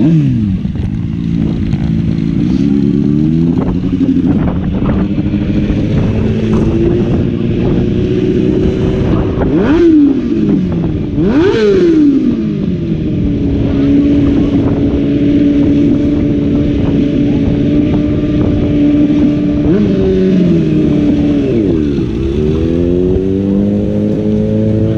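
Motorcycle engine revving hard: uneven revs at first, two sharp blips about ten and twelve seconds in, then held at steady high revs for several seconds. The revs drop near the end and climb again as the bike pulls away.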